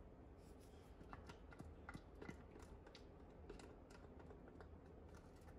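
Near silence with faint, scattered small clicks and taps from ingredients and a container being handled over a glass blender jar.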